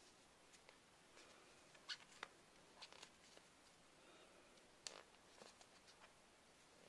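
Near silence with faint scattered ticks and soft rustles from a crochet hook working yarn through stitches, with a few sharper clicks about two seconds in and again near five seconds.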